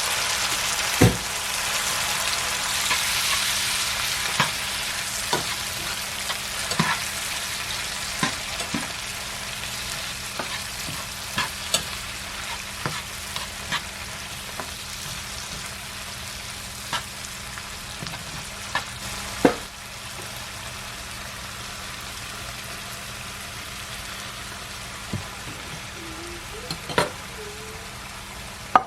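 Vegetables sautéing in a pan, a steady sizzle that is loudest in the first few seconds and then eases a little, with a utensil stirring and knocking against the pan now and then.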